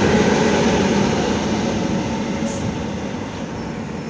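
Class 450 Desiro electric multiple unit train running through the platform, a steady rumble that slowly fades.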